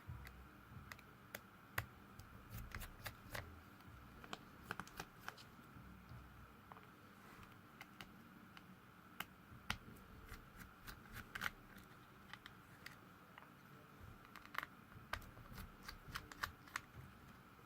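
Faint, irregular small clicks and ticks of a small Phillips screwdriver working the tiny screws out of an LG G4 smartphone's rear frame, with plastic-and-metal handling clicks.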